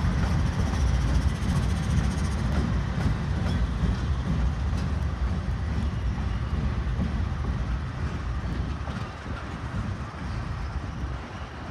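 Norfolk Southern diesel freight locomotives passing, a deep steady rumble that grows quieter over the last few seconds.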